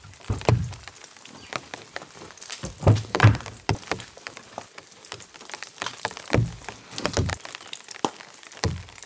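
Irregular dull thuds and sharp knocks of a hiking pack being pulled out of a car's rear door and set down, and of footwear being handled on a gravel track, the heaviest thumps a few seconds apart.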